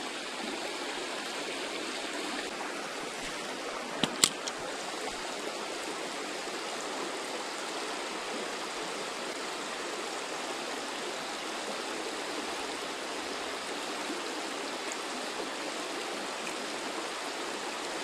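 Fast-flowing water of a shallow river riffle running steadily, with two sharp clicks close together about four seconds in.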